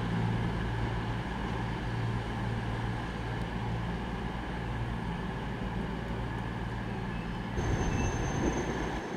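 A diesel train at the station, its engine running with a steady low hum. About seven and a half seconds in, the sound changes abruptly and a high, steady, thin whine sets in.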